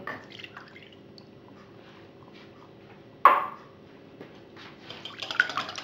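Light taps of kitchenware on a cut-glass mixing bowl, with one sharp clink about three seconds in. Near the end a fork starts beating egg, sugar and milk in the glass bowl: a quick, rapid, wet scraping swish that grows louder.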